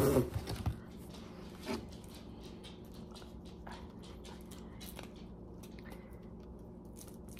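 Faint scattered clicks and light rustles of a package being handled and opened, over a low steady hum, with one sharp knock at the very start.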